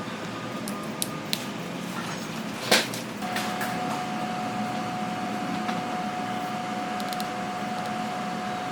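Steady machine hum with a few light clicks. A sharp click comes about three seconds in, and just after it a steady high whine starts and holds.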